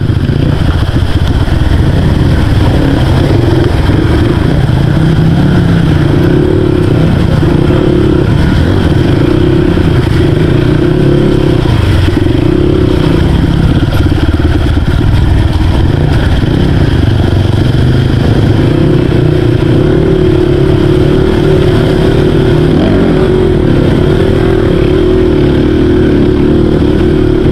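Dirt bike engine running steadily under the rider, its pitch rising and falling a little with the throttle as it rides over a muddy track.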